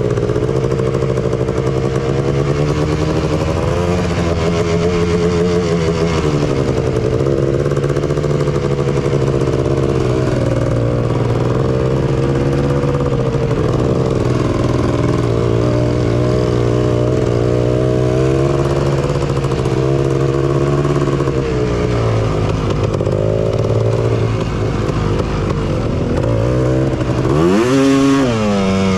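Honda TRX250R's two-stroke single-cylinder engine running under load on the trail, its pitch rising and falling with the throttle. Near the end the revs drop briefly and then climb sharply.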